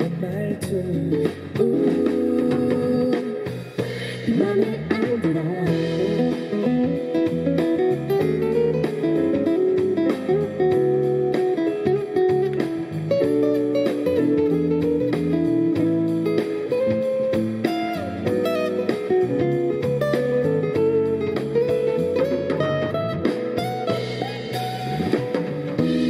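Instrumental break of a song played live on a stage piano with acoustic guitar; the woman's singing comes back in near the end.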